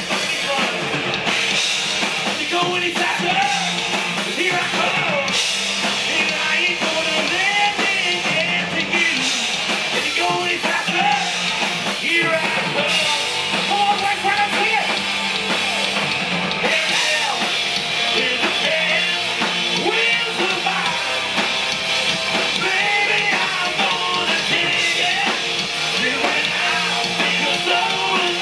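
A live hard rock band playing: distorted electric guitars and a drum kit under a lead singer's vocal.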